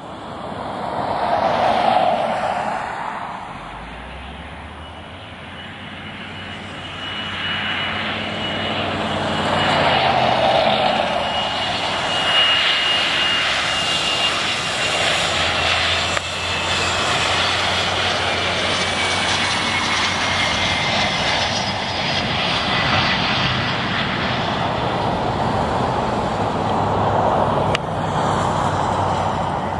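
Twin rear-mounted turbofan engines of an Embraer ERJ-145-family regional jet on landing approach: a steady jet roar that swells as the plane draws near, with a high whine that slowly falls in pitch as it passes.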